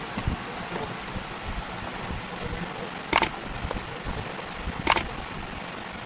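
A knife blade slicing through kinetic sand, soft gritty cutting over a steady hiss. Twice, about three and five seconds in, a loud mouse-click sound effect.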